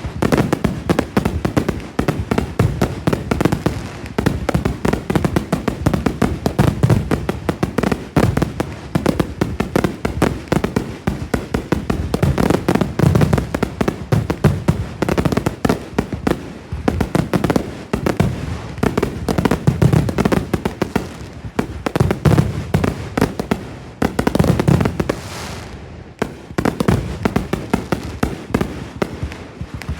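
Fireworks going off in a dense, continuous barrage of overlapping bangs and crackles, easing briefly about 25 seconds in before picking up again.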